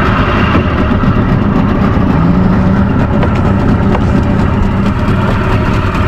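A small fishing boat's outboard motor running steadily under way, a loud, unbroken engine sound.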